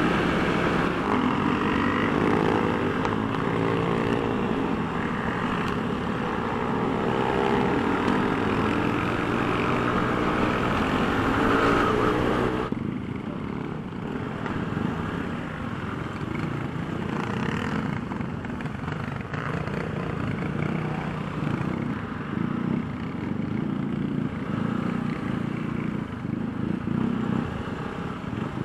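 Motorcycle engine running under way, its pitch rising and falling. About thirteen seconds in, the sound cuts off suddenly to a quieter, steadier stretch of riding noise.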